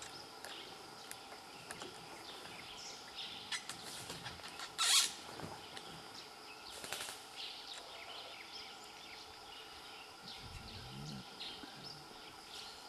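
Dry-forest ambience: scattered short bird chirps over a steady faint insect hum. A brief loud noisy burst comes about five seconds in, and a weaker one about two seconds later.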